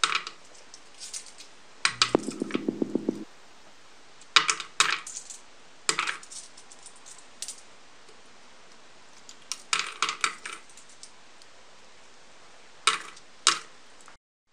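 Coins dropped one after another through the slot into a hollow turned cherry-wood piggy bank, each landing with a sharp clink, several in quick clusters. About two seconds in, one coin rattles and spins inside for a second before settling.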